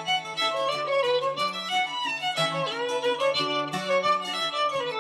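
Instrumental music: a melody with sliding notes over sustained lower notes.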